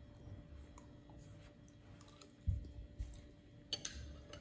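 Metal spoons clicking against ceramic bowls of oatmeal, with scattered light clicks. Two dull thumps, about two and a half and three seconds in, are the loudest sounds, and a sharp clink comes near the end.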